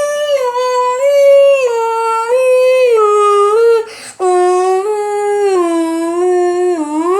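A dog howling in long wavering notes, its pitch stepping up and down, with a quick breath about four seconds in and a rising note just before it stops.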